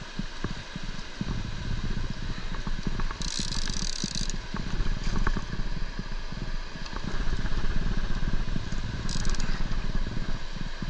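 Wind buffeting an outdoor action-camera microphone in an uneven low rumble, with small clicks and scrapes. About three seconds in, a high hissing buzz lasts about a second; a shorter one comes near the end.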